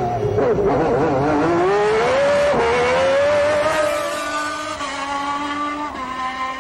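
Formula One car engine from the 1991 season revving hard under acceleration. The pitch climbs, drops suddenly at a gear change about two and a half seconds in, climbs again, then holds and fades as the car moves away.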